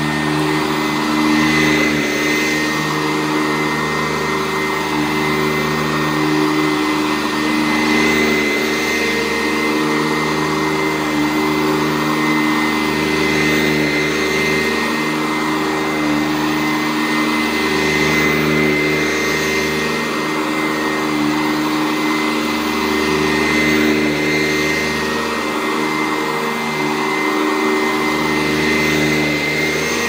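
Sanitaire SC889A commercial upright vacuum cleaner running steadily on carpet, a constant motor whine with a high tone over a rushing hiss, swelling slightly now and then as it is pushed across the floor.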